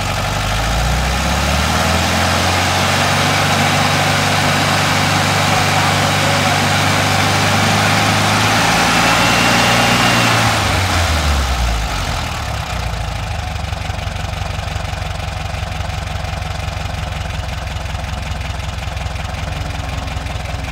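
Volkswagen Beetle air-cooled flat-four engine running, fitted with electronic ignition in place of points. It runs at a raised speed at first, then the revs fall away about eleven seconds in and it settles into a steady, lower idle.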